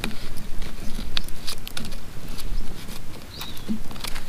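Wood campfire crackling, with sharp, irregular snaps and pops from the burning branches. A brief high chirp sounds about three and a half seconds in.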